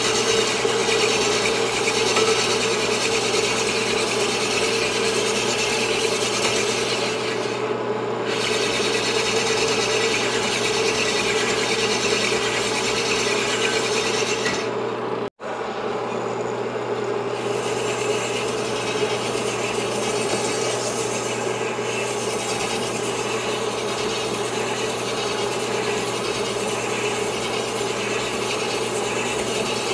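Sunnen cylinder honing machine running, its abrasive stones rasping steadily against the bore of a Yamaha 250 two-stroke cylinder worked on the mandrel, over a steady motor hum. The sound cuts out for an instant about halfway through.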